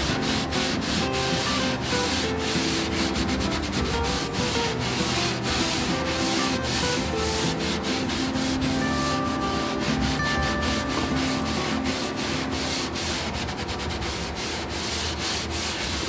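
A hand-held pad scrubbing back and forth over bare oak inside a cabinet: rapid, rough rubbing strokes, several a second, as a finishing product is worked into the wood. Soft background music plays underneath.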